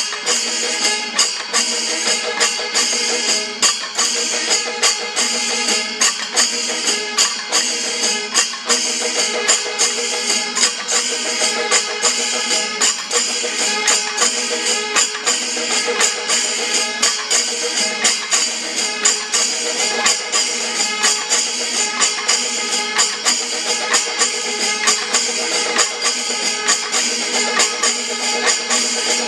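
Kerala temple percussion ensemble (chenda melam) playing: a steady, driving rhythm of chenda drum strokes and bright ilathalam cymbal clashes, over sustained tones from the kombu horns.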